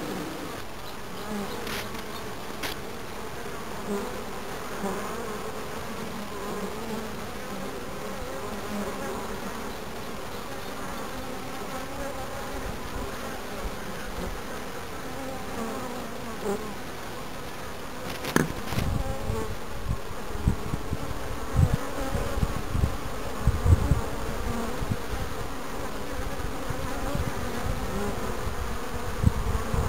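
Honeybees from a recently hived swarm buzzing at the hive entrance, their wavering hum shifting as individual bees fly close past. From about two-thirds of the way in, the buzz grows louder and uneven, with low rumbling bursts and a single sharp click.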